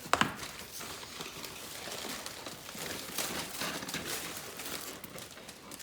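Crinkling and rustling of wrapping being handled around a new chrome truck bumper, with a sharp knock just after the start.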